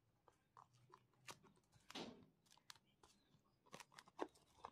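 Faint crinkling of plastic cling film as it is pressed and smoothed down over a plastic food box, a string of soft irregular crackles and clicks.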